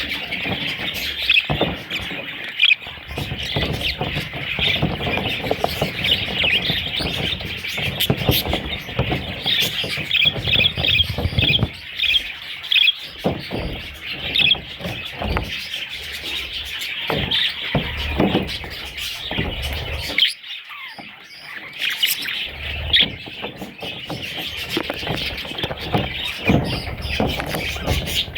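A flock of budgerigars chirping and chattering continuously in high, busy twitters, with scattered knocks and rustling underneath and a short lull about two thirds of the way through.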